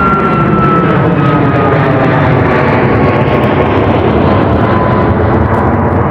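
Boeing 737 jet engines running loud: a steady rush of noise with a high whine that slowly falls in pitch.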